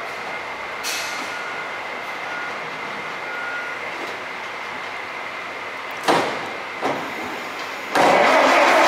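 Steady shop noise with a faint high whine and a few sharp knocks. Near the end a sudden loud rush of noise sets in as the 1925 Ford Model T truck's engine is cranked on the starter.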